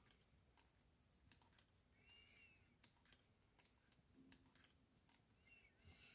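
Near silence, with faint scattered clicks from wooden knitting needles and yarn being handled as stitches are cast on.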